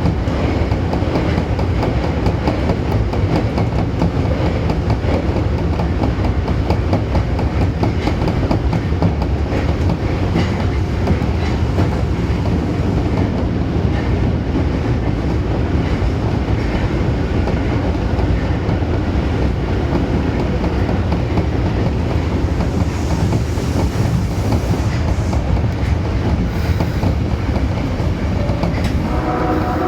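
Osaka Metro 22 series subway train running at speed, a steady low rumble with wheels clicking over the rail joints. Right at the end a steady pitched tone with several notes begins, the start of the train's horn, which on this set is known for sounding abnormal.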